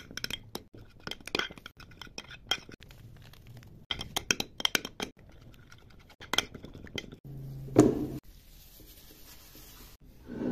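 Metal spoon stirring a thick spice marinade in a glass baking dish, clinking and scraping against the glass in quick irregular taps. Near the end the tapping stops, giving way to a steady low hum with a single loud thud.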